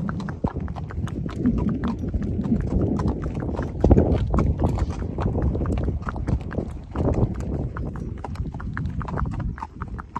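Hooves of a ridden Connemara pony and a second pony led alongside, clip-clopping on a tarmac lane: an irregular run of sharp hoof strikes over a steady low rumble.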